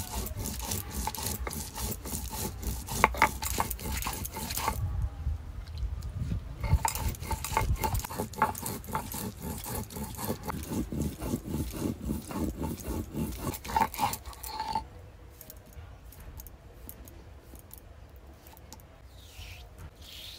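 Stone roller rubbed back and forth on a flat stone grinding slab (shil-nora), crushing dried red chillies into a paste: a rough, rhythmic grinding that stops about 15 s in, after which only faint scraping is left.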